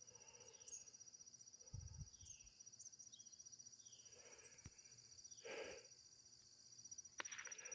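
Faint, steady, fast-pulsing high trill of an insect chorus, typical of crickets, with a few short downward bird chirps over it and one louder call about two-thirds of the way through.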